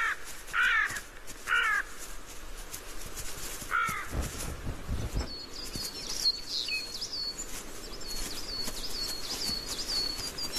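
Carrion crow cawing, four harsh calls in the first four seconds. From about halfway through, a small bird chirps in rapid, high, repeated notes.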